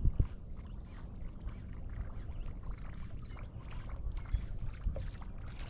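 Small waves lapping against the hull of a small boat, with faint scattered splashes over a low, steady rumble.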